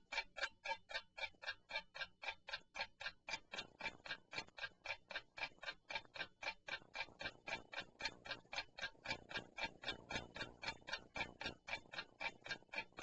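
Clock ticking sound effect, an even, steady tick at about four ticks a second, used as a countdown timer while a quiz question waits for an answer.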